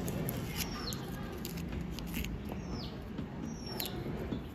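A small bird chirping: a few short, high chirps that fall in pitch, over a steady low hum, with a few light clicks.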